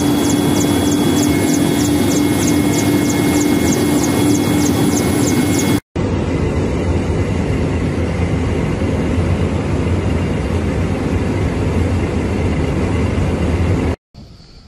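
Aircraft cabin noise: the steady drone of the plane's engines heard from inside the cabin, with a faint ticking about four times a second. It cuts off briefly about six seconds in, resumes as a deeper rumble, and stops suddenly near the end.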